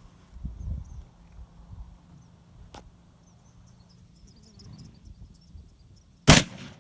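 A single .30-06 rifle shot about six seconds in, sharp and brief with a short echo, after several seconds of quiet outdoor background.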